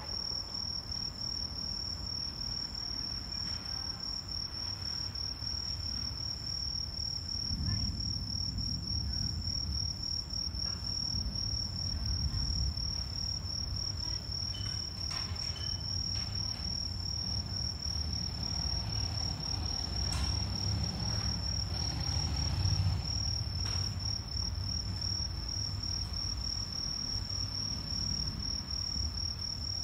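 Night insects chirring in one continuous high-pitched trill, with a low rumble underneath that swells several times.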